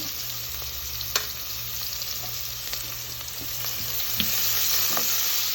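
Chopped onion and garlic sizzling in hot canola oil in a pan, a steady frying hiss that grows a little louder past the middle, with a few sharp clicks of a utensil stirring against the pan.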